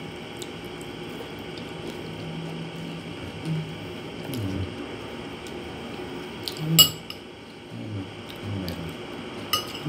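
Metal spoon clinking against a ceramic plate: a sharp, ringing clink about seven seconds in, the loudest sound, and a lighter one near the end.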